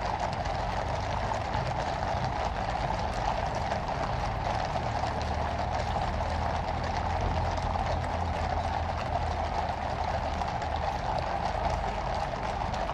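Horse-drawn state coach passing: horses' hooves clip-clopping and the coach's wheels rumbling on the road, over steady background noise.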